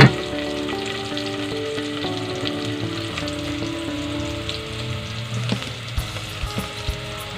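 Chopped garlic and onion sizzling steadily in hot cooking oil in an aluminium pot, sautéing until they brown. A few light clicks come near the end.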